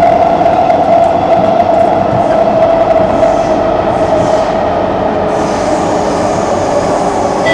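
Inside a Singapore MRT East West Line train running through the tunnel between stations: a loud, steady rumble of wheels on rail under a high, steady whine that sinks slightly in pitch.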